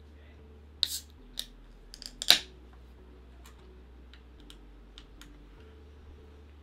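Aluminium beer can being opened: a few light clicks as a finger works the pull-tab, then the tab cracks the lid open with a brief hiss a little over two seconds in, followed by a few faint clicks at the tab.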